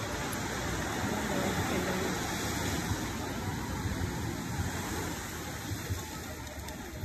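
Small ocean waves breaking and washing up on a sandy beach: a steady rushing surf noise.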